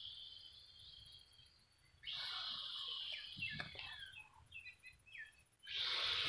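Faint outdoor garden ambience: a steady high insect drone with a few short bird chirps, and a few soft knocks about halfway through. The sound cuts out completely twice, for about half a second each time.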